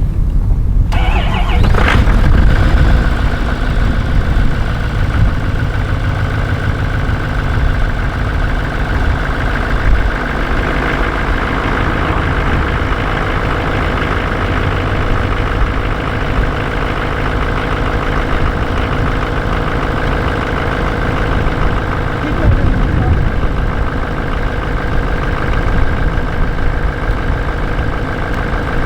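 Diesel truck engine starting on a freshly fitted battery about a second in, then idling steadily.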